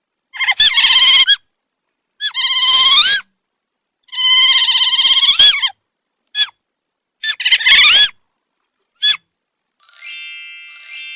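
Otter calling: a run of high-pitched squealing calls, several long ones with a quick upward lilt at the end, broken up by short chirps. Near the end, two bright chime dings ring out and fade.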